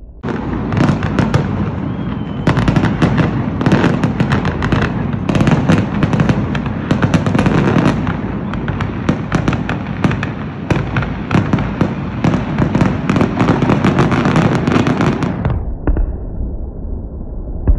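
Fireworks display: a dense, continuous run of shell bursts, bangs and crackling, starting suddenly and cutting off abruptly about fifteen seconds in.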